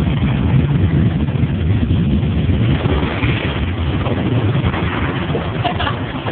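Loud, steady low rumble with a noisy hiss over it, recorded through a phone's microphone.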